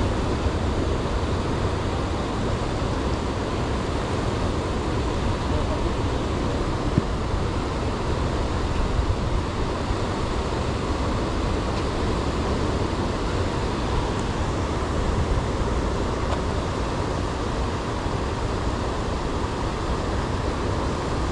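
A steady, low rushing noise that does not change throughout, with a few faint ticks.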